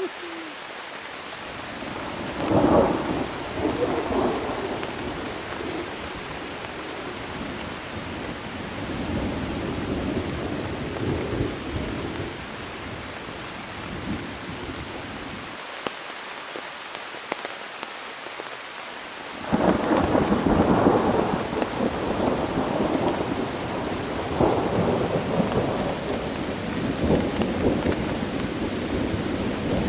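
Thunderstorm with heavy rain falling steadily. Thunder cracks about two seconds in and rumbles for a few seconds, rolls more softly in the middle, then breaks loudly again past halfway and rumbles on to the end. The peals are big, deep, long ones.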